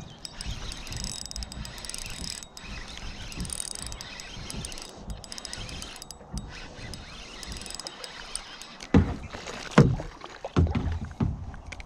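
Spinning reel being cranked on a retrieve, its gears ticking faintly over water lapping at a kayak. About nine seconds in come several loud, heavy thumps.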